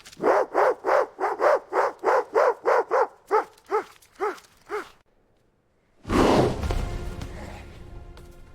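Dogs barking in a quick run of about fifteen barks, the barks spacing out and fading toward the end: a warning to drive off another dog. About six seconds in comes a loud sudden hit that fades away over a couple of seconds.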